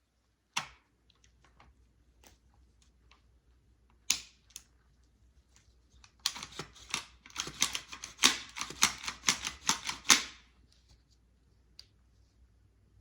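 Firearm being handled after cleaning: a few single sharp clicks, then a dense run of rapid clicks and rattles for about four seconds that ends abruptly.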